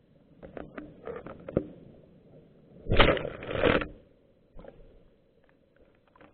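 Underwater sound in a rock pool picked up by a submerged camera: scattered clicks and knocks, then a loud burst of noise about three seconds in that lasts about a second.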